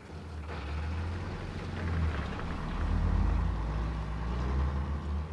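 A milk-collection truck's engine running low and steady as the truck pulls away, growing louder over the first few seconds.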